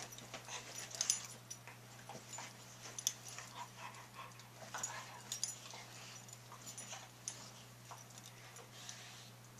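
Two dogs nose to nose, sniffing and mouthing at each other: a string of short, irregular snuffles and clicks, with soft dog whimpering.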